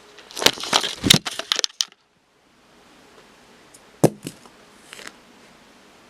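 A quick flurry of sharp clicks and rattles, like something small being handled, then after a short dropout a single sharp click followed by a few faint ticks.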